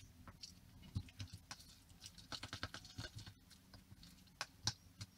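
Steel spoon stirring a thick semolina and curd batter in a plastic bowl: faint, irregular wet scrapes and clicks, busiest in the middle, with a sharper click near the end.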